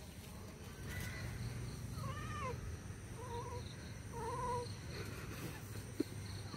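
A cat meowing four times, short calls about a second apart, each rising and then falling in pitch. A single sharp click near the end.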